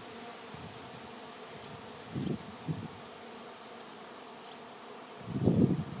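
A honey bee swarm in flight buzzing steadily, thousands of bees milling in the air around their cluster on a branch. Brief low gusts of wind noise on the microphone come about two seconds in and, louder, near the end.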